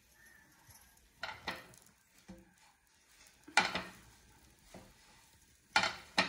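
Kitchen utensils clinking and knocking against dishes: about six short, sharp knocks spread out with quiet between, the loudest about halfway through.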